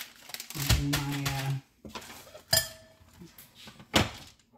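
Two sharp knocks of glassware on the counter about a second and a half apart, the first with a short ring, as a glass pie plate is moved.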